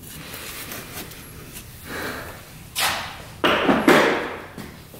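Dull knocks and clunks of hands and tools handling parts around an ATV's carburetor, with a few louder clunks about three to four seconds in and small clicks between.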